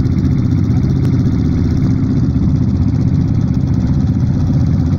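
Quad bike (ATV) engine running steadily at a low, even speed with a fast, dense pulsing.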